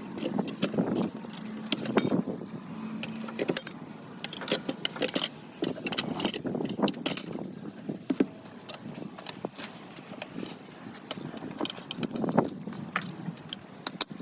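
Metal hand tools clinking and knocking irregularly against a tractor tyre and wheel rim during a manual tyre change, with a faint steady hum underneath.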